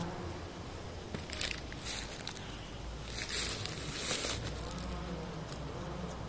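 Dry leaf litter and twigs rustling and crackling in a few short bursts, the longest lasting about a second, over a low steady background rumble.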